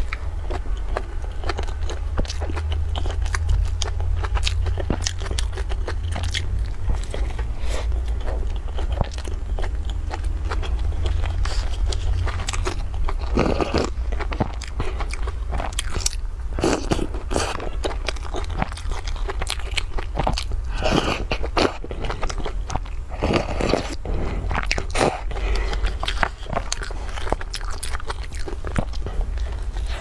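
Close-miked eating sounds: biting and chewing soft steamed buns, with many small wet mouth clicks. There are louder bursts in the middle and second half as food is taken from a cup of soup, all over a steady low rumble.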